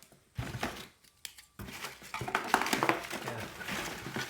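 Loose LEGO plastic parts being handled and sorted by hand: many small clicks and rattles with some crinkling, busiest in the second half.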